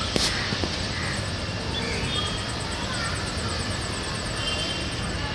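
Outdoor ambience: a steady rushing noise with a low rumble, a fast, regular high-pitched chirping, and a few faint bird calls.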